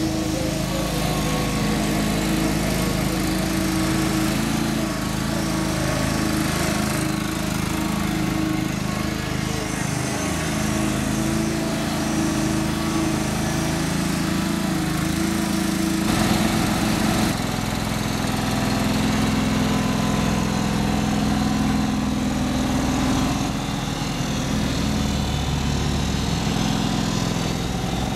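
John Deere 425 riding mower's 20 hp liquid-cooled V-twin engine running steadily as the mower is driven across the lawn. The engine note shifts about halfway through.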